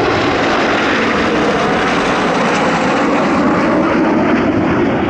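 Jet noise of four Blue Impulse Kawasaki T-4 trainers flying a low pass in diamond formation: a loud, steady rush of their turbofan engines that swells slightly near the end.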